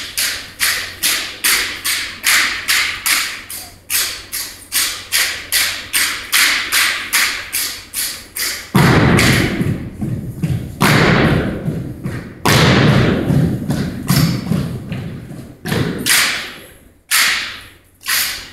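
Army JROTC exhibition drill team's boots and rifles striking in unison, a steady beat of sharp thuds about two a second. Around the middle, longer and louder noisy stretches take over, followed by a few separate sharp hits near the end.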